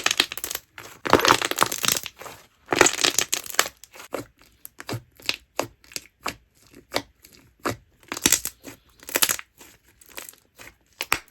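Slime being poked and squeezed by hand, popping and crackling: two long crackling squeezes in the first few seconds, then sparser single pops with short crackling bursts near the end.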